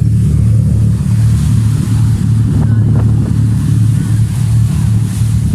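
A large passenger ferry's engines running under way: a loud, steady low hum.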